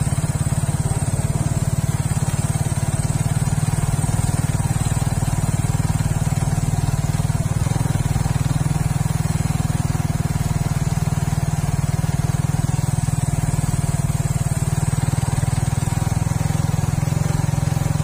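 Suzuki Raider 150 Fi motorcycle's single-cylinder engine running at a steady, even speed while riding, heard from on the bike.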